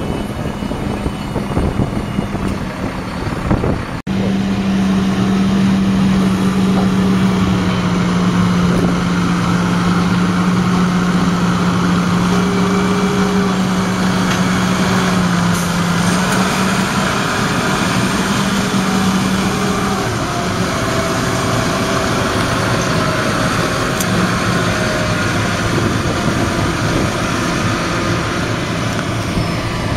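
JCB Fastrac 4220 tractor's 6.6-litre six-cylinder diesel engine running steadily as the tractor moves, with a steady hum.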